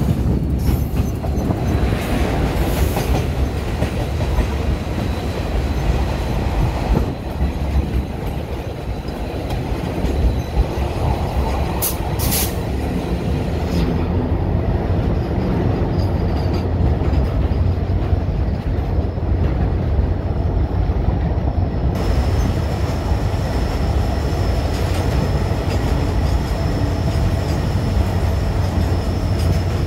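Container freight train passing close by: a steady heavy rumble and rattle of loaded wagons running over the rails. There are a couple of sharp clacks about twelve seconds in, and a thin high wheel squeal is heard at times over the rumble.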